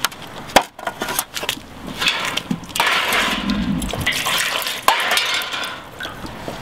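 Water ladled from a metal scoop over a glass ambrotype plate and splashing down into a steel bucket: the rinse that washes the fixer off the plate. A few sharp clicks come first, then about three seconds of pouring and splashing.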